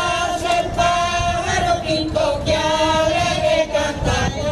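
A small Galician folk group, mostly women, singing together in unison in held phrases, accompanying themselves on pandeiretas (jingled frame drums).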